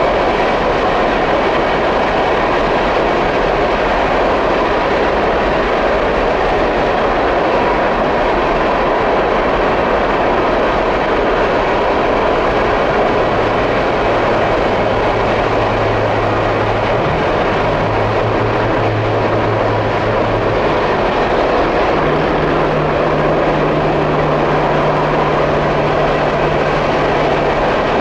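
Long freight train of empty bulk cars rolling past, a steady noise of wheels on rail. About halfway through a low engine drone joins in, stepping up in pitch a few seconds later.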